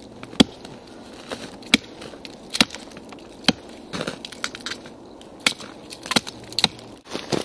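A small axe chopping into a pine trunk to strip away the bark: about eight sharp, irregularly spaced blows of the axe head on bark and wood.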